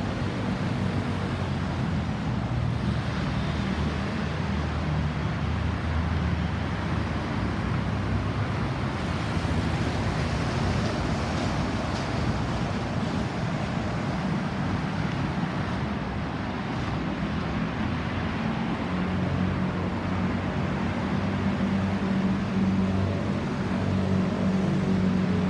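Road vehicle noise: a steady low engine hum with tyre and road noise. No siren is sounding.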